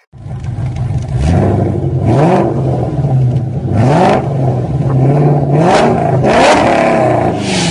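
An engine revving in repeated short blips that rise in pitch over a steady idle, with bursts of rushing noise.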